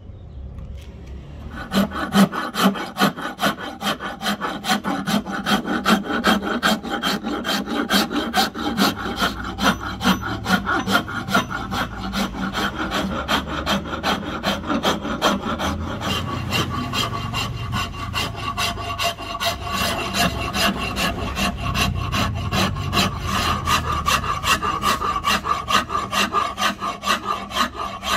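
A rasp or file worked back and forth across the wood of a padauk axe handle in rapid, even strokes, starting about a second and a half in.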